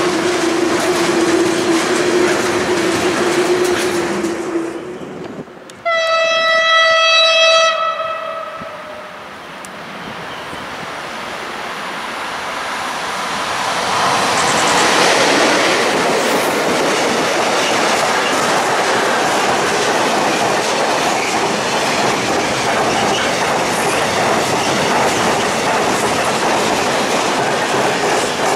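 A freight train of tank wagons rolls past with a steady whine over the wheel noise. Then a PKP Cargo ET41 electric locomotive gives one long horn blast about six seconds in, the Rp1 'attention' signal. Its mixed freight train approaches and rolls past, wheels clattering over the rail joints.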